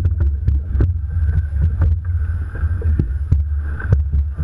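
Water slapping and lapping against the hull of a rowing eight, heard as irregular sharp knocks, over a steady low rumble of wind buffeting the microphone.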